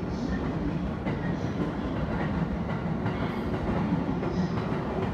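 JR East E217-series electric train running alongside the platform: a steady rumble of wheels on rails, with some light clatter over the rail joints.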